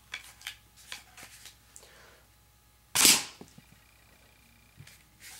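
Homemade bolt-action paper dart rifle: a few light clicks as it is handled and loaded, then one sharp crack about three seconds in as it fires a dart into a paper target.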